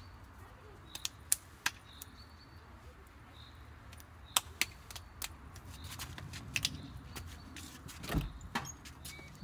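A few light clicks and taps, then a louder thump about eight seconds in as a white plastic entrance door is pulled open by its handle.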